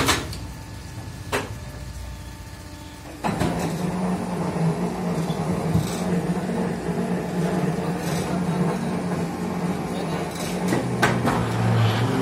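Automatic fly ash brick press working: a sharp clank at the start and another about a second later, then about three seconds in its hydraulic power pack comes under load with a steady low hum that runs on, with a few knocks near the end.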